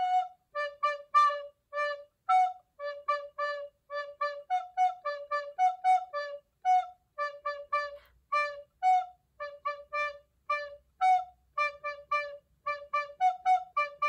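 Soprano recorder playing a simple practice tune on two notes: short, separately tongued notes in a steady rhythm, mostly on the lower note, D, with the higher note here and there.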